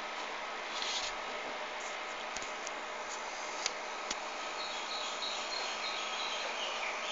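Steady hiss of static from a 2-metre amateur radio receiver, with no voice on the channel and a few faint clicks around the middle.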